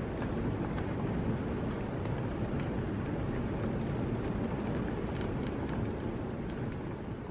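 Heavy rain pouring steadily, with scattered drops ticking close by over a low, even rumble.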